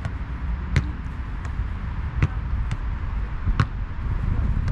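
A football being kicked against a brick wall. Sharp thuds of foot on ball and ball on brick come about every second and a half, with lighter knocks in between, over a steady low rumble.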